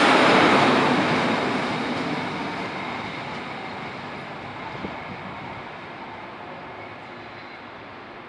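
S-Bahn train hauled by a DB class 143 electric locomotive rolling past and pulling away on departure. Its running noise is loud at first and fades steadily as it recedes.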